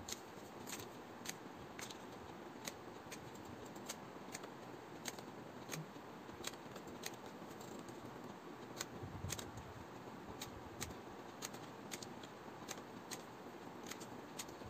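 Scissors snipping thin paper in short, faint cuts at a steady pace of about three snips every two seconds, trimming small pieces off a paper cut-out.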